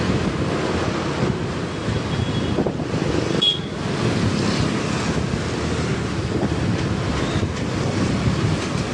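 Wind rushing over the phone's microphone on a moving motorbike, with road and traffic noise underneath. A short high-pitched chirp sounds about three and a half seconds in.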